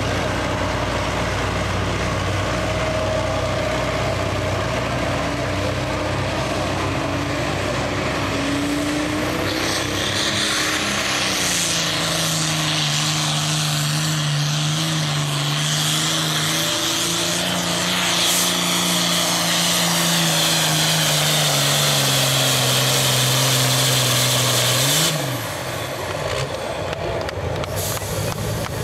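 Turbocharged diesel engine of an International 966 pulling tractor running hard under full load during a pull. About ten seconds in, a high whistle rises over the engine note. Near the end, the engine cuts back suddenly and its pitch falls as the throttle comes off.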